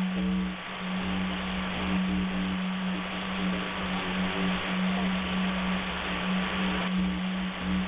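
Shortwave radio reception: a steady low drone tone and a thin high whistle over constant static hiss, with short, faint tones coming and going underneath.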